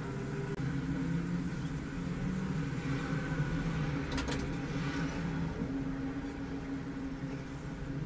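Steady low machine hum, with a short cluster of clicks about four seconds in.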